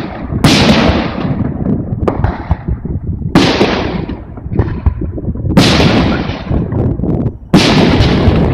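Aerial firework shells bursting in a display, about six loud bangs a second or two apart, each trailing off before the next.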